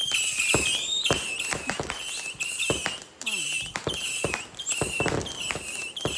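Fireworks going off in sharp pops and crackles, with a high, wavering chirp repeating about twice a second.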